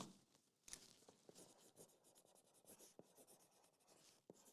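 Near silence, with faint scratching and a few light, scattered taps.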